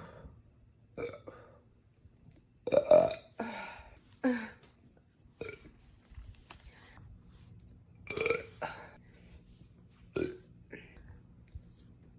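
A woman burping over and over: about eight separate belches with short pauses between them, the loudest about three seconds in.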